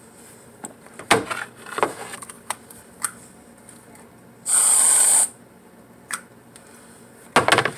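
Aerosol whipped cream can sprayed once into the mouth: a loud hiss lasting under a second, about halfway through. Short knocks and rattles of handling come before it and near the end.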